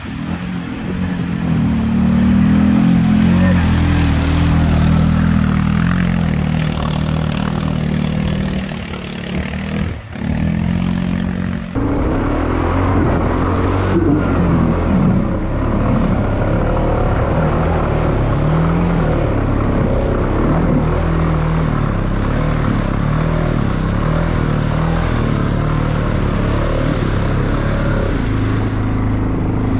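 ATV engines revving up and down under load as quads push through deep mud. About twelve seconds in the sound changes abruptly to a second quad's engine, heard from the rider's seat as it labours through muddy ruts.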